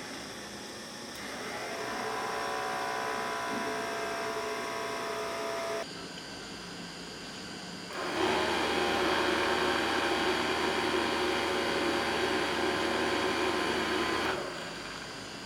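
Small DC motor driving a propeller fan, powered by a 9V battery: it spins up about a second in and runs with a steady whine, stops abruptly near the middle, then starts again louder about two seconds later and runs until shortly before the end.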